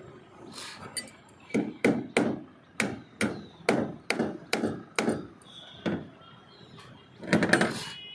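A hammer striking the lintel's shuttering formwork: about a dozen sharp, unevenly spaced knocks, then a louder, longer clatter near the end.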